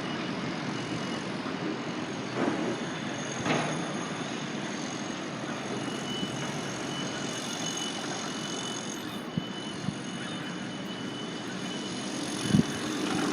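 Steady city background noise: a constant hum of distant traffic, with a few faint high steady tones and a single short knock near the end.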